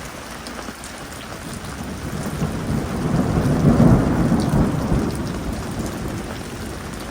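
Steady rain with a long roll of thunder that builds from about two seconds in, peaks near the middle and slowly fades away.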